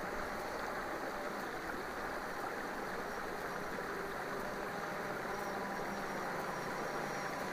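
Faint, steady hum of a DJI Phantom 4 Pro quadcopter's propellers as it flies back in return-to-home after losing its controller signal, over a steady background hiss.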